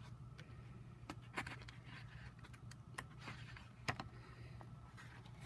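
Faint rustling of large sheets of patterned paper being leafed through and turned by hand, with a few light ticks and taps as the sheets are handled.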